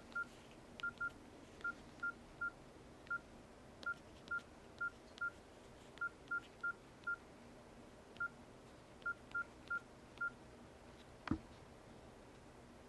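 Keypad tones of a Nokia N97 mini: about twenty short, same-pitched beeps at an irregular typing pace, one per key pressed on its slide-out QWERTY keyboard. A single sharp click follows near the end.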